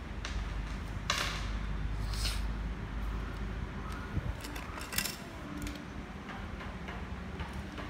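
Construction-kit parts (perforated plates, strips and brackets) being handled and fitted together: scattered clicks, light knocks and a few brief rustles, over a steady low hum.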